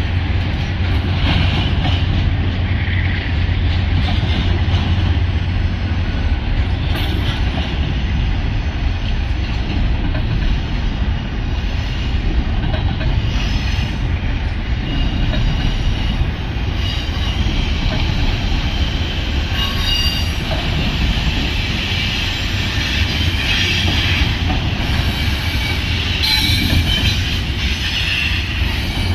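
Union Pacific westbound freight train rolling past, its cars' wheels clacking over the rail joints and squealing at times, over a continuous heavy rumble. The rumble is strongest in the first few seconds, and the squeal grows more prominent in the second half.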